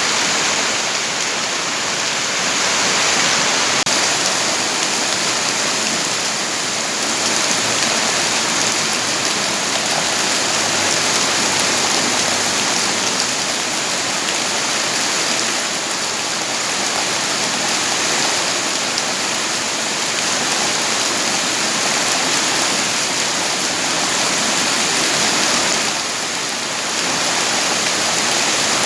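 Steady heavy rainfall: a dense, even hiss of falling rain, with slight dips in level a few times.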